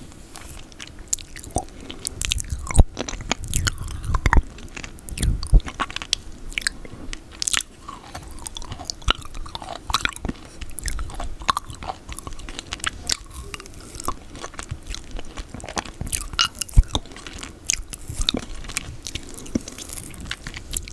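Close-miked mouth sounds of eating peanut butter: chewing with frequent irregular wet clicks and smacks.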